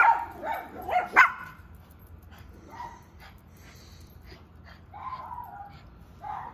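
Small dogs barking in high-pitched yaps, a quick loud run in the first second or so, then a few fainter barks spaced out.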